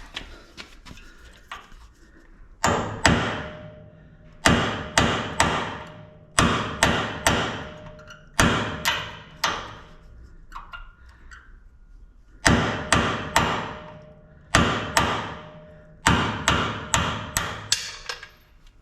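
Hammer blows on metal, struck in quick bursts of two to five, with pauses of a second or two between bursts; each blow rings briefly.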